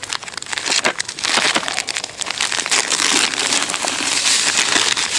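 A plastic packet of dry fishing groundbait crinkles as it is handled and opened. About a second in, the crumbly mix starts pouring from the packet into a plastic bucket with a steady rustling hiss.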